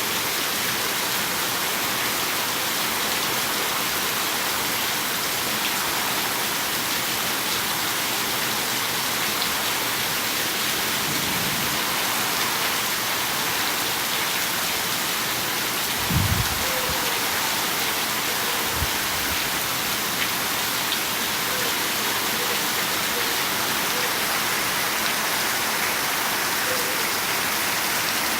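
Steady rain falling, an even hiss throughout. A brief low thump sounds a little past halfway, and a softer one a few seconds later.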